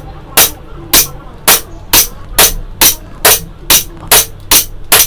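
Tanfoglio Witness 1911 CO2 blowback BB pistol firing semi-automatically: about eleven sharp shots, evenly paced at a little over two a second, each one with the slide blowing back.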